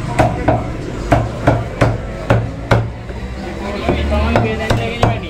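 A butcher's cleaver chopping a chicken on a chopping block: sharp, even chops, about two to three a second.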